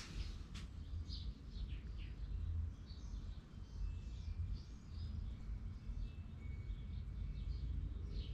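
Small birds chirping in short, falling notes scattered throughout, over a steady low rumble.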